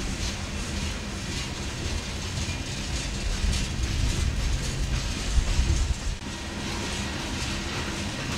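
Empty open-top hopper cars of a freight train rolling past: a steady low rumble of steel wheels on rail with a rattling clatter over it, louder for a stretch from about three to six seconds in.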